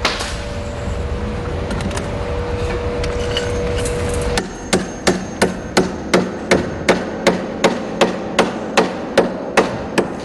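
Claw hammer striking a wire tie against the edge of a wooden pallet in a quick, even series of about fifteen blows, roughly three a second, starting about four seconds in. Before the blows there is a steady hum.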